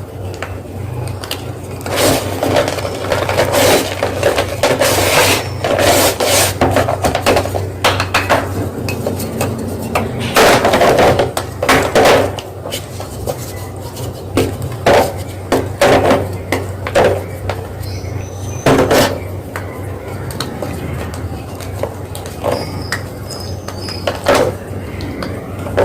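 Soft gym chalk being crushed, crunching and crackling in irregular bursts of sharp crunches, with busier stretches about two seconds in and again around ten to twelve seconds, over a steady low hum.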